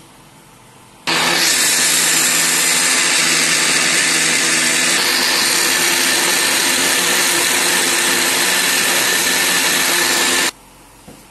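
Electric countertop blender running at full speed, puréeing fresh peppers and onions. It starts abruptly about a second in, runs steadily with a slight change in tone about halfway through, and cuts off sharply about a second before the end.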